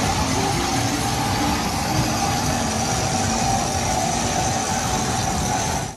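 Children's jeep roundabout turning: a steady mechanical rumble from the ride, with a faint steady whine under it.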